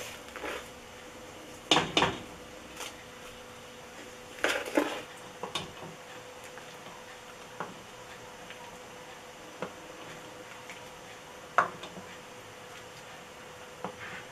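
Metal spoon clinking and knocking against a stainless steel pot as spoonfuls of meringue are dropped into milk, in scattered strokes every second or two, the loudest about two and five seconds in.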